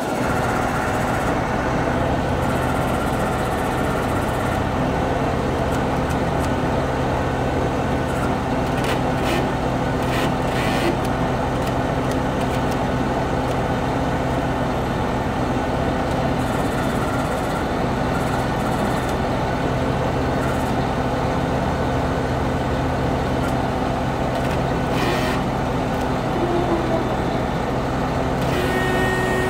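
Heavy truck diesel engine idling steadily, an even low hum with no revving.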